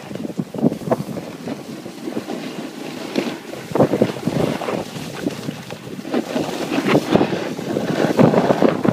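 Wind buffeting the microphone of a camera carried down a ski slope: an uneven, gusting rush that grows louder near the end.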